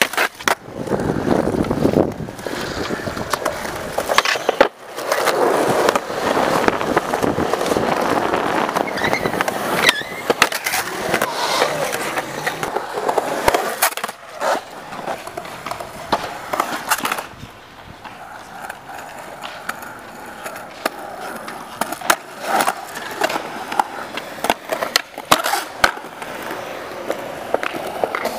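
Skateboard wheels rolling on concrete, broken by many sharp clacks of the board popping and landing and by scraping as the trucks or board grind along a concrete ledge and ride a bowl.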